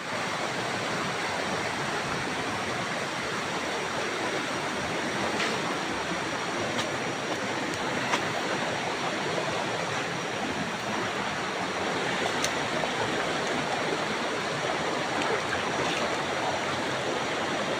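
Steady rush of flowing stream or river water, with a few faint short clicks over it.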